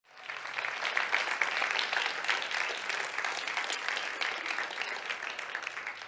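Audience applauding, a dense patter of many hands clapping that begins abruptly and starts dying down near the end.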